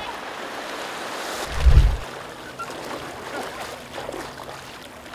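Sea water washing and sloshing around a surfboard in small surf, with one loud low thump about a second and a half in.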